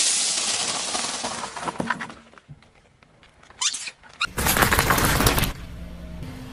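A car tyre rolling over and crushing objects on asphalt. A loud crackling crunch fades away over about two seconds. After a short pause comes a brief crack, then a second loud crush about four seconds in.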